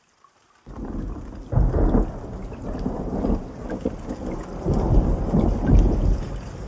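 Thunderstorm: rain falling steadily with rolling thunder. It starts under a second in, with heavy rumbles about a second and a half in and again around five seconds in.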